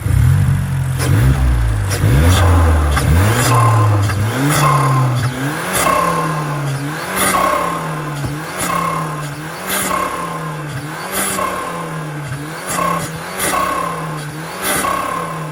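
2021 Mazda3 Turbo's 2.5-litre turbocharged four-cylinder starting and settling for a few seconds. It is then revved in short, even blips about once a second, each with a brief whistle and hiss, breathing through a new Spectre intake filter.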